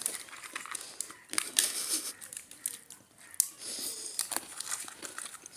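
Irregular crinkling and rustling with crisp little clicks, close to the microphone.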